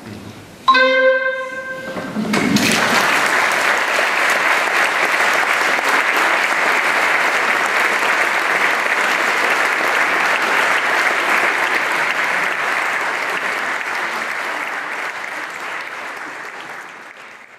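A clarinet-and-vibraphone duo's closing note sounds loud and rings for about a second and a half. Audience applause then starts and runs on, fading out near the end.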